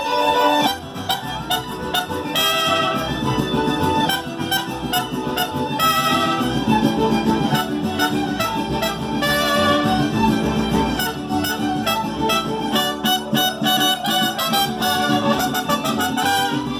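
Mariachi band with harp playing an instrumental passage of a song, without singing.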